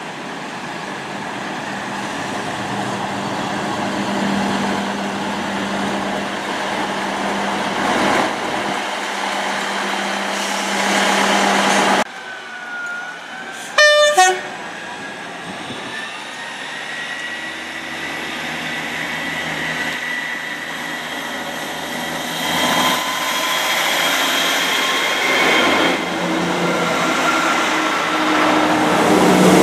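Class 158 diesel multiple unit arriving, its engine drone growing louder. A short, loud horn blast sounds about halfway through. After it, diesel train engine noise with a slowly rising whine builds again as a train draws alongside.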